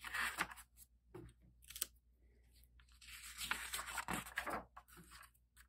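The cover of a paperback picture book being opened and smoothed flat by hand: soft paper rustling in short bursts, with a longer stretch of rustling about three seconds in.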